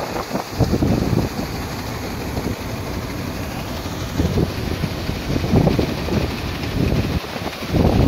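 Combine harvester running steadily while its unloading auger empties wheat grain into a trailer, with gusts of wind buffeting the microphone.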